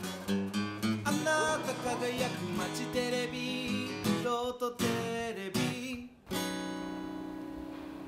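Background music of plucked, guitar-like string notes, closing on a held chord that rings on and slowly fades from about six seconds in.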